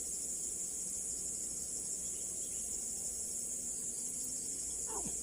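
Steady high-pitched chorus of insects droning without a break, with a short falling sound near the end.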